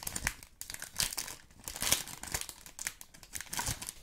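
Crinkly plastic packaging being handled and crumpled, in irregular bursts of crackling.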